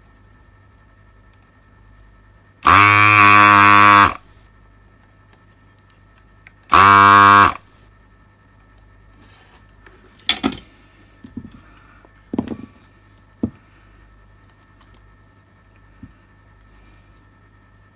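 Electric desoldering tool's vacuum pump buzzing in two bursts, a longer one of about a second and a half and then a shorter one, while a resistor is desoldered from the board. Several small clicks and knocks follow.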